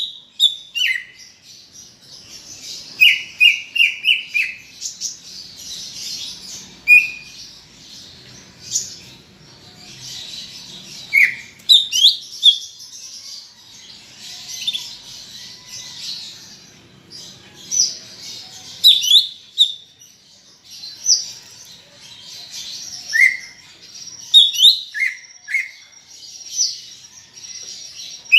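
Cucak ijo (green leafbird) in full song: a rapid, varied string of sharp whistled notes and chattering, in phrases with short pauses, and a held high whistle near the end.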